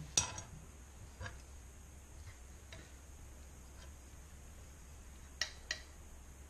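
Light clicks and knocks of things being handled on a table: a sharp click just after the start, a few faint ticks, then two knocks close together near the end as a frying pan of spaghetti is lifted off its trivet.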